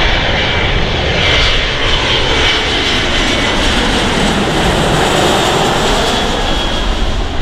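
Boeing 737-300's CFM56 turbofan engines on landing approach, passing low directly overhead. A loud, steady jet noise with a hissing edge, its tone sweeping down and back up as the plane goes over.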